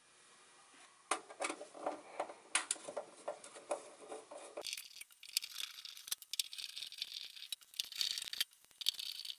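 Light metallic clicks and rattles as small screws are taken out of the side of a vintage test instrument's aluminium chassis by hand, starting about a second in and turning brighter and higher about halfway through.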